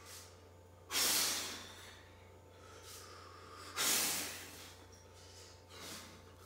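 A man's forceful breathing out under the strain of heavy dumbbell curls: two loud puffs of breath, about a second in and near four seconds, with fainter breaths between.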